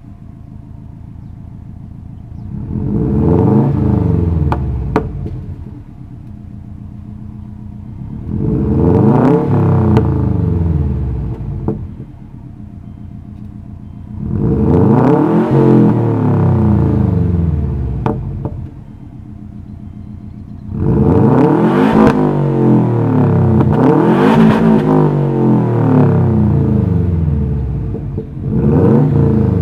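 2005 Subaru Legacy GT with its muffler deleted, its turbocharged flat-four revved in place again and again. Each rev rises in pitch and falls back to a lower idle between blips.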